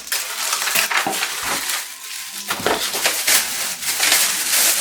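Plastic packaging crinkling and rustling close up as small ring-light accessories are handled and unwrapped.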